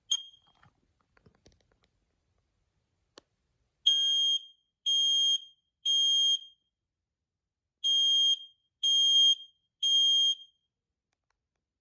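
First Alert SM200 battery-powered photoelectric smoke alarm on test: a short chirp and some clicks as the test is pressed, then two rounds of three loud, high-pitched beeps, the temporal-three (code 3) alarm pattern.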